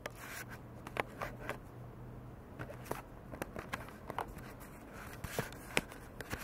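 Handling noise from the camera being set up: scattered taps, clicks and light rustling close to the microphone, over a low steady hum.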